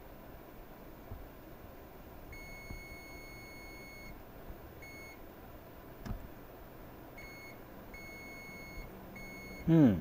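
Digital multimeter's continuity beeper sounding in on-off beeps as the test probes touch points on a laptop motherboard: one long beep, then several shorter ones, each marking a low-resistance path while a short circuit is traced. Near the end comes a brief, loud, falling 'hmm'-like voice sound.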